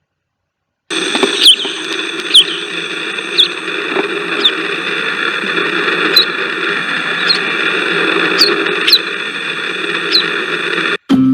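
A bird giving short, sharp, downward-sweeping calls roughly once a second, over a steady layered high whine and hiss in the background. The recording starts about a second in and cuts off suddenly just before the end.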